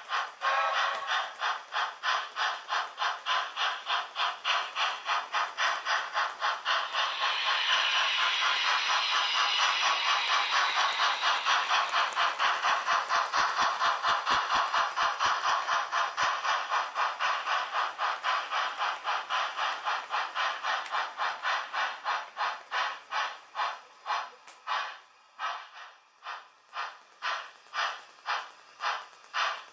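Steady chuffing from an H0-scale Märklin model steam locomotive's sound decoder, an even rapid beat. It grows louder as the train passes, then thins to softer, spaced chuffs near the end.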